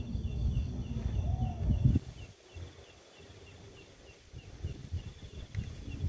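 Strong wind buffeting the microphone, a heavy low rumble that drops away about two seconds in and builds again in gusts near the end. Behind it, a faint high chirp repeats steadily about twice a second.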